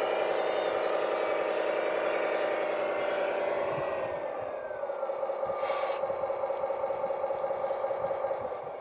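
Electric motor and gearbox of a radio-controlled model vehicle whining steadily, with one higher tone sliding down in pitch about halfway through.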